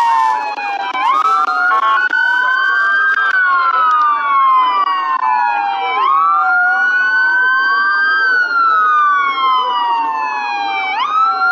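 Several emergency-vehicle sirens wailing together, their pitches sweeping up and down out of step with each other, each sweep taking a few seconds.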